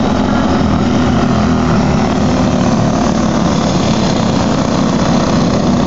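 Engines of several small race cars running together as they lap a dirt oval, a loud, steady buzzing drone.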